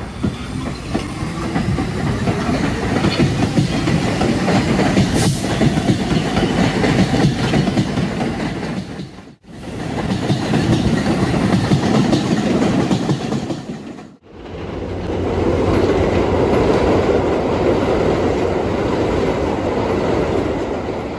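Train running along the track with a clickety-clack, heard in three stretches that break off abruptly twice, about 9 and 14 seconds in.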